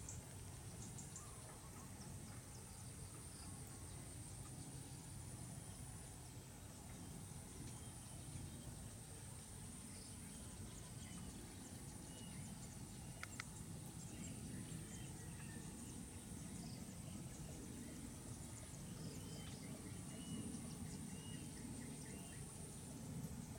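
Outdoor field ambience: a steady high-pitched insect trill, a low rumble underneath, and a few faint short bird chirps, mostly in the second half.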